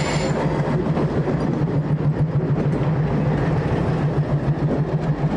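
Alco diesel locomotive's engine running close by as it comes up to couple onto the cars: a steady low drone with a slight pulsing.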